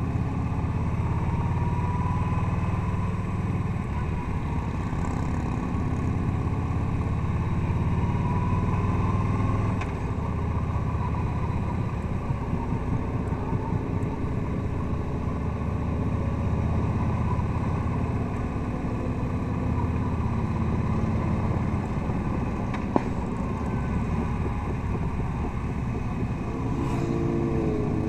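Touring motorcycle's engine running on a twisty road, heard from the rider's seat with wind rush, its pitch stepping up and down every few seconds as the throttle changes. A single sharp click comes near the end.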